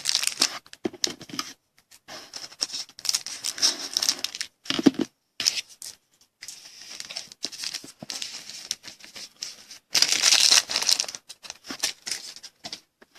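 Trading-card pack wrappers crinkling and tearing as packs are opened and the cards handled. The sound comes in irregular rustling stretches with short gaps, loudest about ten seconds in.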